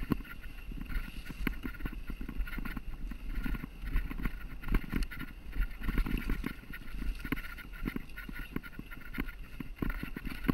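Mountain bike riding over rough, rocky singletrack: irregular knocks and clatter as the tyres hit stones and the bike rattles, over a continuous low rumble of tyre noise.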